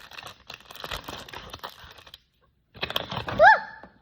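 Plastic packaging rustling and clicking as it is handled, in two spells with a short pause between. About three and a half seconds in there is a short high squeak that rises and falls.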